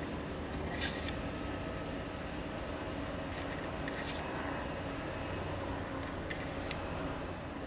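Light clicks and taps, a few times, as a holly pen blank and metal bushings are slid onto a lathe's pen mandrel, over a steady low hum.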